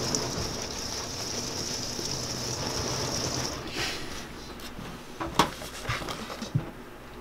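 Maraschino cherries and confectioners' sugar swished around in a stainless steel bowl, a steady hiss that stops about three and a half seconds in. A few light knocks follow, the loudest one about two seconds later.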